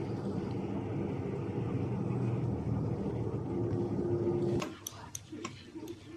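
A steady low rumble that cuts off suddenly about four and a half seconds in, followed by a few sharp clicks as a scalpel blade scrapes at a thick toenail.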